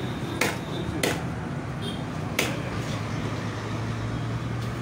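Knife chopping through fish on a cutting board: three sharp strikes, the first two about half a second apart and the third after a longer pause, over a steady low background hum.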